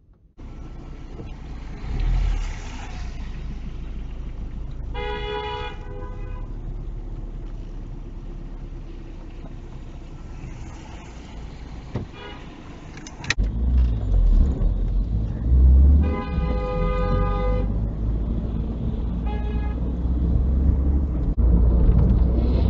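Car horn sounding three times: a blast of over a second, a second longer blast past the middle, and a short toot soon after. Under it, steady engine and road noise heard from inside a car.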